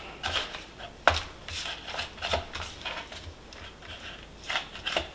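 Irregular crinkles and clicks of a disposable aluminium foil pan as gloved hands shift and straighten raw chicken wings in it, with a sharper click about a second in.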